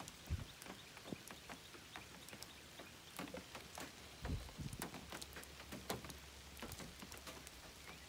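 Raindrops pattering as scattered, irregular ticks, with a soft low thump about four seconds in.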